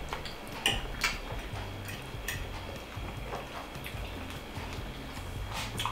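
Close-miked chewing and mouth sounds of a man eating creamy pasta, with a few sharp clicks of a metal fork against a ceramic plate. A steady low hum runs underneath.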